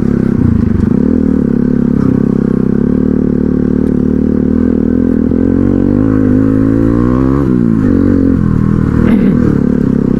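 Single-cylinder motorcycle engine running under the rider on a dirt track. The revs climb from about six seconds in and drop sharply just before eight seconds, then settle back to a steady pitch.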